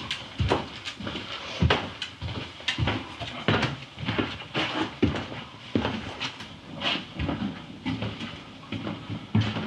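Irregular knocks, clunks and clatters of objects being handled and moved, one or two sharp knocks a second.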